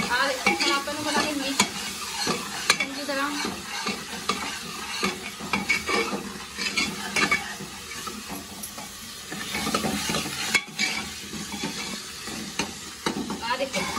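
A steel ladle stirring and scraping through onion masala frying in an aluminium pressure cooker, in irregular strokes over a steady sizzle.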